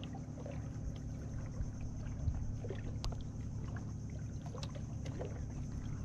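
Water lapping and slapping against the wooden hull and bamboo outriggers of a small outrigger canoe, over a steady low hum, with a few light ticks and knocks.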